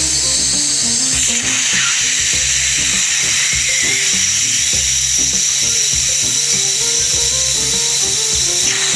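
Dental drill whining steadily at a high pitch as its bur cuts away decay from a child's upper primary front teeth. Background music plays underneath.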